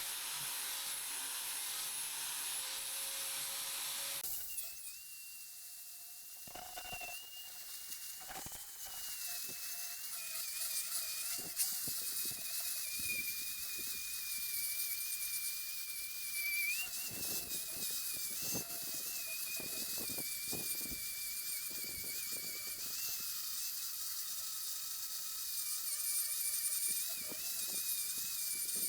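Electric angle grinder running a buffing pad against rusty steel. It gives a high, slightly wavering whine with a scratchy rubbing sound each time the pad is worked over the metal. The sound changes abruptly about four seconds in.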